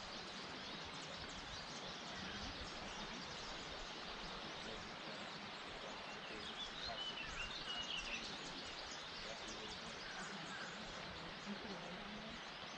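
Steady low rush of a spring-fed trout stream flowing over riffles, with a few faint high chirps in the middle.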